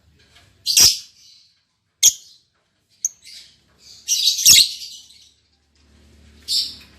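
Lovebirds giving short, shrill chirps, about five in all, with a longer harsh burst of chatter about four seconds in.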